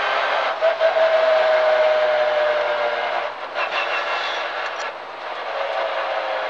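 Clio rally car's engine and drivetrain heard from inside the cabin: a steady whining note that slowly falls in pitch as the car slows, over road noise, with a few brief knocks around the middle.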